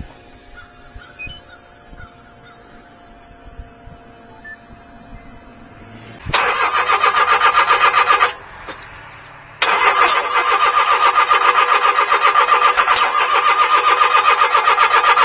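Three-cylinder engine of a 1992 Daihatsu Hijet mini truck cranking and trying to start: a faint steady hum of the fuel pump first, then a short burst of rapid pulsing about six seconds in and a longer, steadier one from about ten seconds on. The engine is not firing right, from an ignition fault later traced to a broken part in the distributor.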